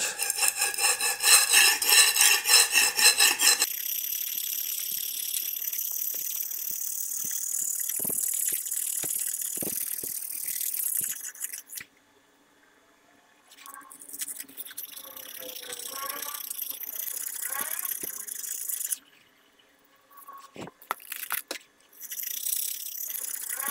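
Steel chef's knife blade scraped across a clay brick to sharpen it, a dry rasping scrape. Quick, loud strokes for the first few seconds, then steadier, quieter strokes that drop out to silence twice.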